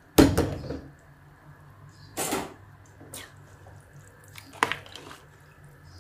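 Soaked basmati rice being stirred with a spoon into boiling stock in a large pot: wet sloshing and a few sharp knocks of the spoon against the pot, the loudest just after the start, under a steady low hum.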